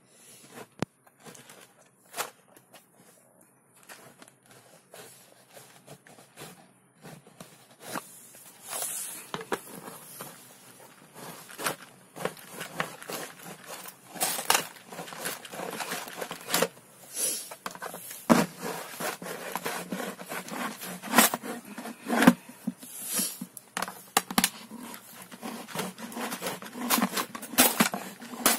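A knife sawing and prying into a hollow plastic piggy bank, with irregular scraping and cracking of the plastic. The strokes grow louder and more frequent about eight seconds in.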